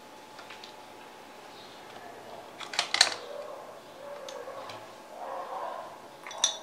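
A few sharp clicks and taps about three seconds in, and another near the end: a paintbrush knocking against the plastic watercolour pan and the palette board while being loaded with red paint.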